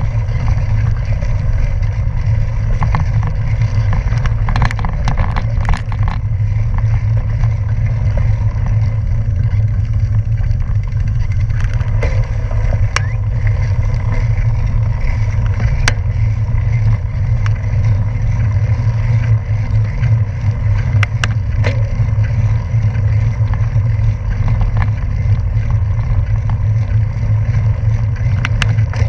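Wind and road noise on a bicycle-mounted action camera's microphone while riding, a loud steady low rumble, with a few sharp ticks from the bike and road surface.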